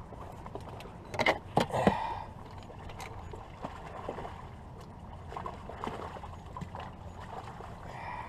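Knocks and rattles of fishing gear and a landing net against a canoe as a hooked steelhead is played, loudest in a short cluster about a second in, then scattered light clicks over a steady wash of river and boat noise.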